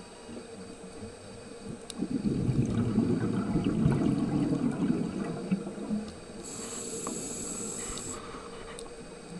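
Scuba diver breathing through a regulator underwater: a burst of exhaled bubbles rumbling from about two seconds in for some four seconds, then a brief high hiss about six and a half seconds in. A faint steady tone runs underneath.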